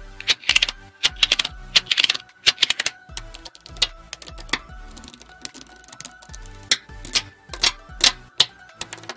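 Small magnetic balls (Buckyballs) clicking and clattering as they snap together and are pressed into rows, in irregular sharp clicks with a few denser clattery runs. Soft background music plays underneath.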